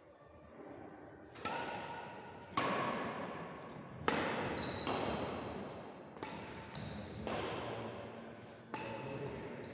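Badminton rackets striking a shuttlecock back and forth in a rally, about seven sharp hits roughly a second apart, each leaving a long echo in a large hall. A few short high squeaks come between the hits.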